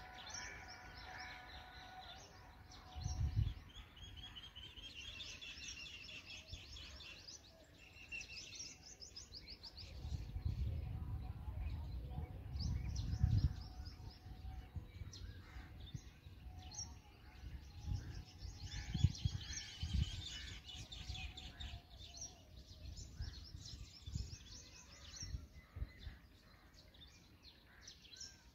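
Black drongos at the nest chirping in rapid trains of short, high notes, in several bouts. Bursts of low rumbling noise come in between, the loudest a few seconds in, near the middle and about two-thirds through.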